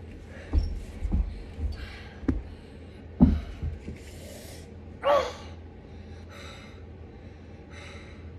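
Scuffling thumps of a play fight, a series of short, deep knocks with the heaviest about three seconds in, as a body hits the floor, followed by a gasp about five seconds in and a few short breathy hisses.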